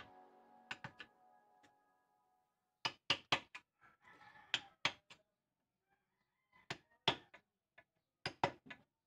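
Claw hammer striking a chisel as it cuts a groove into a wooden beam. The blows are sharp knocks in quick runs of two to four, with short pauses between runs.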